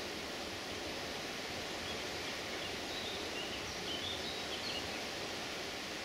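Steady outdoor rushing ambience, an even noise with no engine or rail sound, with a few faint high chirps in the middle.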